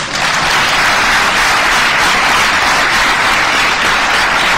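Audience applauding, a loud, steady clapping that begins as the recitation pauses.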